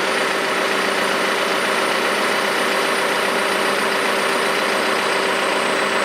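John Deere 310SL backhoe loader's diesel engine running steadily with a constant whine, heard from inside the cab while the backhoe's hydraulics work the bucket open.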